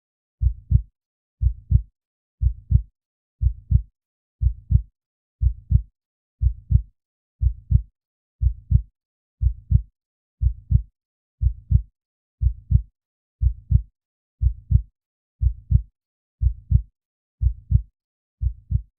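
Heartbeat sound effect: a steady lub-dub double thump about once a second, with silence between the beats.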